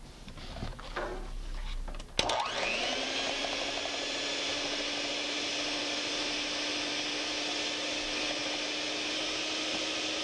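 Electric hand mixer switching on with a click about two seconds in, after a few handling knocks. Its motor spins up quickly to a steady whine as the twin wire beaters whip egg whites to foam in a stainless steel bowl.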